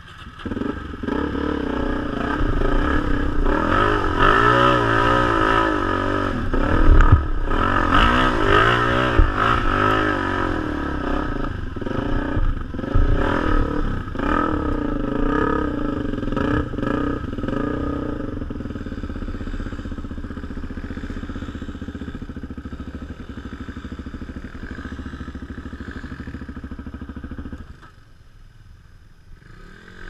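Enduro motorcycle engine revving up and down repeatedly, with knocks and clatter, for most of the first half. It then runs steadier and a little quieter, and drops off sharply near the end.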